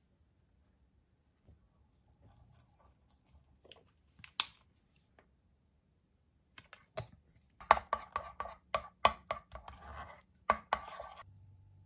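Knife chopping food on a cutting board: a few faint taps and clicks, then a quick, irregular run of about a dozen chops in the second half.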